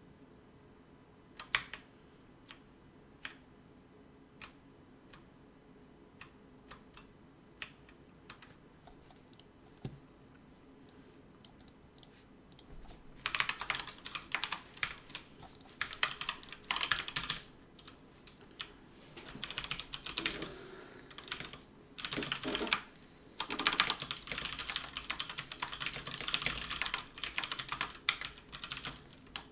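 Typing on a computer keyboard: a few scattered single clicks at first, then from about thirteen seconds in, fast irregular bursts of key presses.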